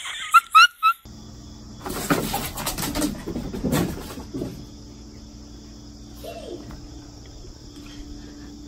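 Four quick, loud rising chirps about half a second in. After that, a steady high insect drone with rustling and handling noise, and a faint short cry about six seconds in.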